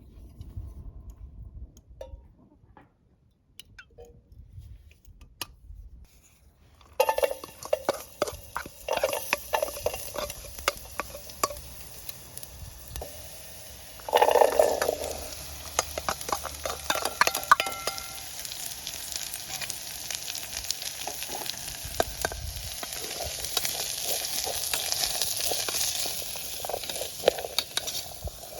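Food sizzling and frying in a hot pan, with crackles and the small clicks of a utensil stirring it. A few light clicks come first; the sizzle starts abruptly about seven seconds in and swells briefly halfway through.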